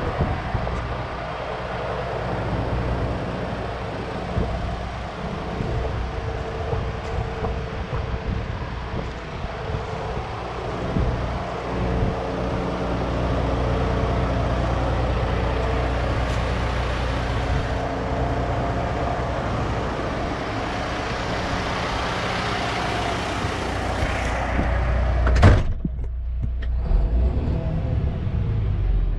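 A 2013 International ProStar semi tractor's diesel engine idling steadily at about 600 rpm. Near the end comes one loud thump, after which the idle is heard muffled from inside the cab.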